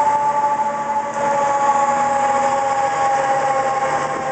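Fire engine's mechanical siren winding down, its pitch falling slowly and steadily, with the truck's engine running underneath.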